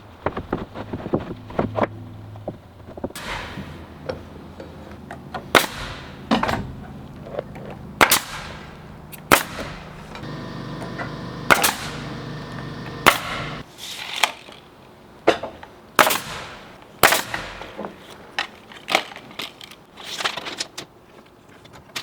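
A series of sharp single bangs a second or two apart, each with a short ringing tail, from nailing during roof construction. A low steady hum runs underneath and stops about two-thirds of the way through.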